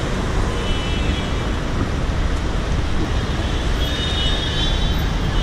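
Steady street traffic: cars and taxis driving past on a busy multi-lane road, a dense rumble of engines and tyres.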